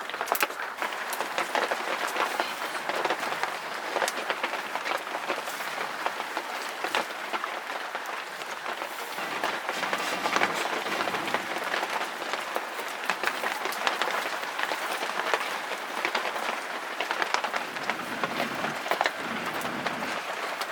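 Heavy rain falling steadily, a dense patter of drops with many sharp ticks throughout.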